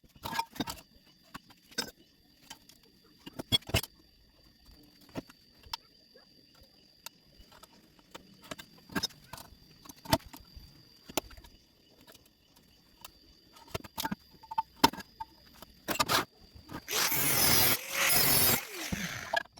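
Scattered sharp clicks and knocks of metal being handled, over a faint steady high whine. About 17 seconds in, a loud, continuous stick-welding arc starts crackling and runs for a couple of seconds.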